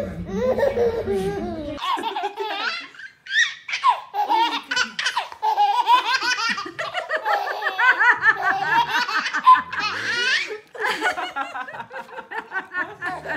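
A baby belly-laughing hard in long runs of short, high-pitched bursts, with brief pauses for breath.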